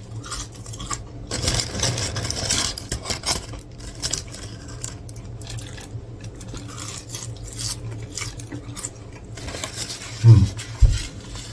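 Close-miked eating sounds: chewing and handling a burger and fries, a stream of small clicks, crinkles and scrapes. A short low vocal hum comes near the end.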